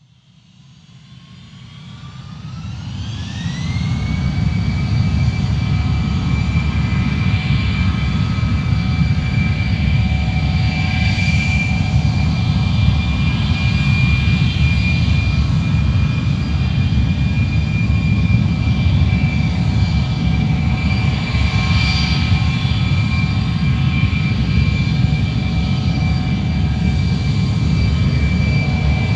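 Airplane jet engine spooling up: a whine rises in pitch as the sound swells over the first few seconds, then holds as a steady high whine over a heavy low rumble.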